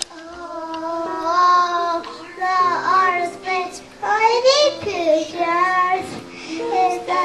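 Young children singing a verse of a song over musical backing.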